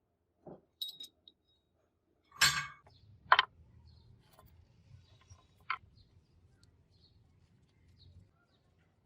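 A few separate knocks and clinks. The loudest two come about two and a half and three and a half seconds in, over a faint low hum.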